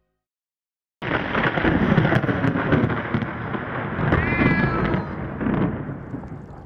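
After about a second of silence, a storm starts abruptly: heavy rain with thunder. A cat meows once, about four seconds in, rising and then falling in pitch. The storm grows quieter toward the end.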